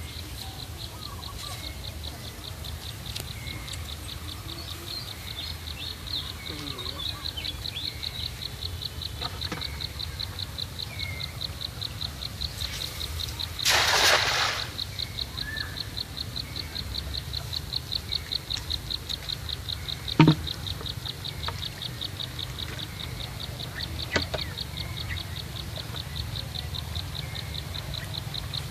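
A high-pitched chirp repeats about three times a second over a low rumble. A brief rush of noise comes about 14 seconds in, and a sharp knock about 20 seconds in.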